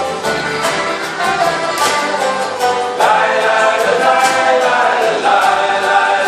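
A folk band playing live: acoustic guitars strummed in a steady rhythm, with several voices coming in singing together about halfway through.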